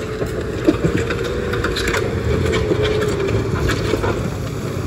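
Wheel loader's diesel engine running under load with a steady whine over its rumble, its bucket scraping and pushing loose gravel and earth, with stones crunching and clicking.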